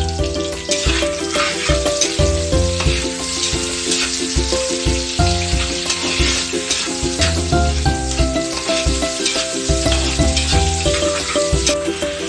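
Chopped onions sizzling as they sauté in a pan, with a spatula scraping as they are stirred, over background music with a pulsing bass.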